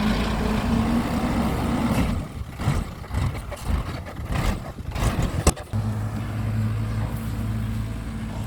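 Vehicle motor running steadily, broken in the middle by a few seconds of irregular knocks and clatter with one sharp click, then running steadily again at a lower pitch.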